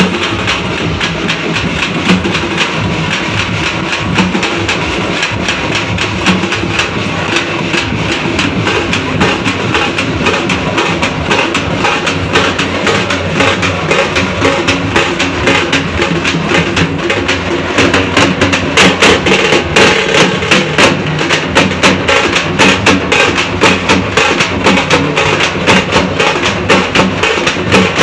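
A group of large procession drums beaten in a fast, dense, driving rhythm. The strokes get louder and more forceful a little past halfway.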